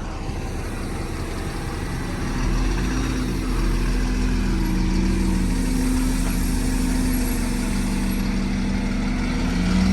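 Bus diesel engine idling close by. It grows louder about two and a half seconds in, then holds a steady low running note.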